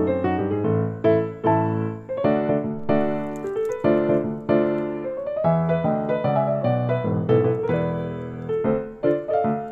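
Background piano music: a melody of notes played one after another without pause.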